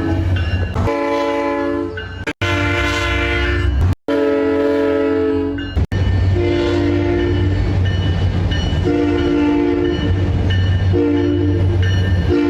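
SunRail commuter-train cab car horns sounding their chords, one recording after another with abrupt cuts between them. The first clips give long blasts. After the last cut, one horn gives three or four shorter blasts about two seconds apart over a steady low rumble.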